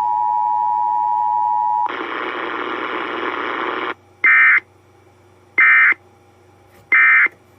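Emergency Alert System audio from a radio receiver: the steady two-note EAS attention tone ends about two seconds in, then two seconds of static hiss. Three short, identical SAME data chirps follow about 1.3 seconds apart, the end-of-message bursts that close the weekly test.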